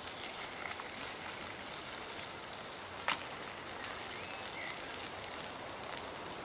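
Steady outdoor background hiss with no clear single source, broken by one sharp click about three seconds in and a faint short chirp about a second later.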